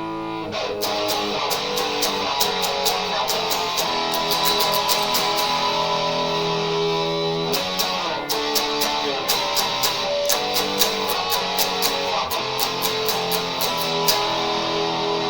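Vicers HSS Strat-style electric guitar being played: a chord ringing out, then a run of quickly picked notes, with a short break about eight seconds in.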